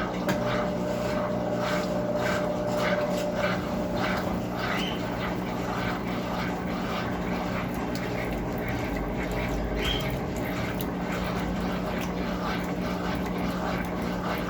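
Brastemp Clean 6 kg washing machine running: a steady motor hum with a fast, regular swishing over it, about two or three strokes a second.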